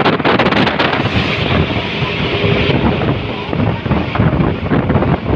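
Wind buffeting the microphone over the rumble of road traffic, with no horn heard. The hiss is heavier for the first couple of seconds, then eases.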